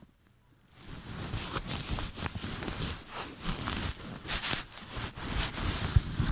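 Footsteps with rustling, an irregular crunching and scuffing that starts about a second in.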